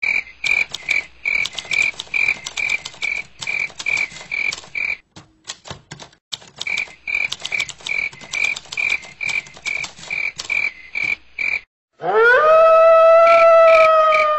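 Night animal calls: a steady rhythm of high chirps, about three a second. Near the end a loud wail rises sharply in pitch and holds, which the uploader presents as a kuntilanak's moan.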